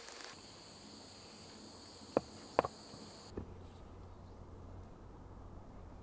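A wooden stick knocking twice on lumps of charcoal on a wooden stump, crushing them, about two seconds in, with a fainter third knock a moment later. A steady high-pitched whine runs underneath and cuts off about halfway through, leaving a low hum.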